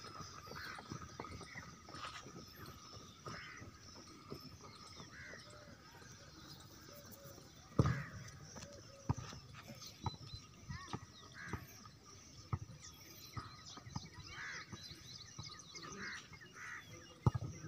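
Open-air ambience with short bird chirps now and then and scattered light knocks, broken by one sharp thump about eight seconds in.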